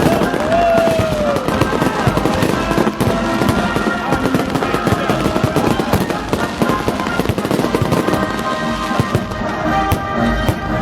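Fireworks salute bursting and crackling over military songs playing, with a short whistle near the start.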